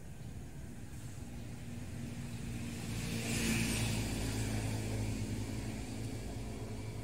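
A motor vehicle passing on the road: its engine and tyre noise grow to a peak about three and a half seconds in, then fade slowly.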